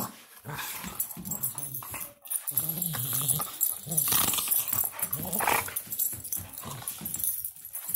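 Dogs play-wrestling, with a German shorthaired pointer making the funny vocal noises she makes when she wrestles: low, pitched grumbling sounds in several bouts with short breaks between them.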